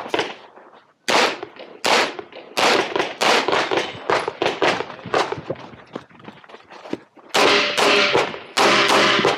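CZ SP-01 pistol firing a string of sharp shots in quick succession, mostly in pairs. There is a short pause about six seconds in, then a faster burst of shots near the end.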